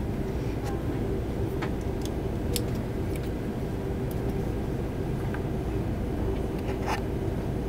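Cabin of an Airbus A330-300 taxiing at slow speed after landing: a steady low rumble of the engines at idle with a steady hum, and scattered small clicks and rattles in the cabin.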